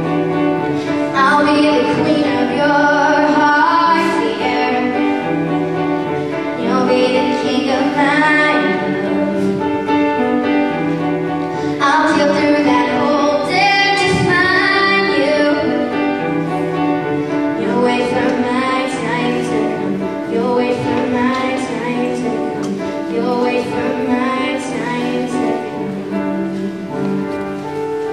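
A girl singing a slow song while accompanying herself on an upright piano.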